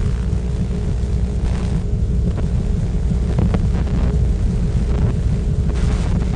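Steady low rumbling drone from the film's sound design, with a few faint clicks near the middle.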